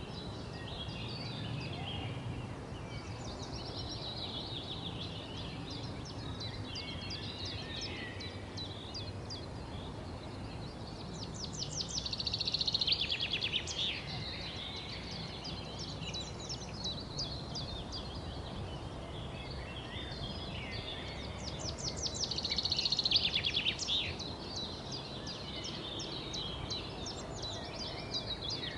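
Several small songbirds chirping and singing. Twice, about 12 and 22 seconds in, a louder, fast trill of quickly repeated notes stands out. Underneath runs a steady low outdoor background noise.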